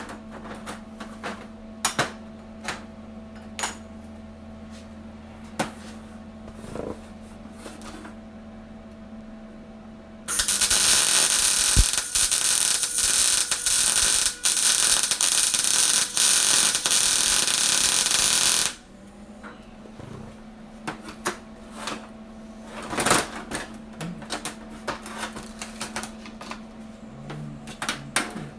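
An arc welder running a crackling weld for about eight seconds, starting about ten seconds in, with a couple of brief breaks. Before and after it come scattered clicks and clanks of steel parts being handled.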